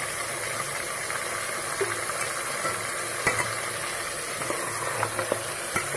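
Chicken pieces frying in hot oil with ginger-garlic paste, a steady sizzle, as a steel ladle stirs them, knocking against the pot a few times.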